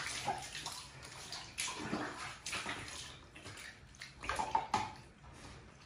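Water splashing during a husky's bath: water poured from a small plastic mug over the dog's soaked coat and onto the tiled floor, in irregular splashes with a busier cluster about four seconds in.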